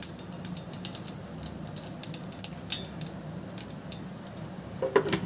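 Refined oil poured from a spoon into a pan on a gas stove, with a click at the start, then scattered small crackles and ticks as the oil heats in the pan, over a steady low hum.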